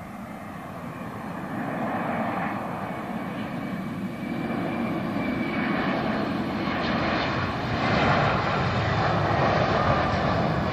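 Jet airliner's engines on the runway, a broad rumble that grows steadily louder and is loudest about eight seconds in.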